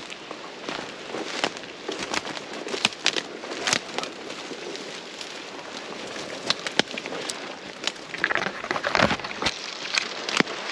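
Dry twigs and brush snapping and scraping with footsteps through dead grass, close to the microphone: irregular sharp cracks throughout, thickest about eight to nine seconds in.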